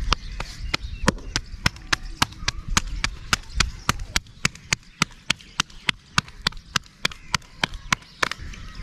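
Roti dough slapped back and forth between bare palms to flatten it by hand into a tandoori flatbread, an even run of sharp slaps at about four a second. The slapping stops shortly before the end.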